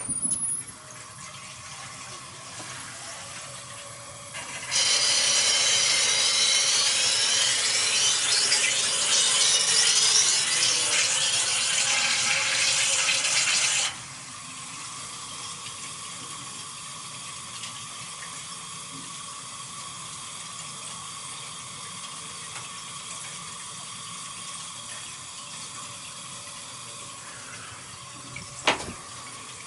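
Water hissing through hot-water heating pipes for about nine seconds, starting and stopping abruptly, then a quieter steady hum with a faint steady tone as the system runs; a single sharp click near the end.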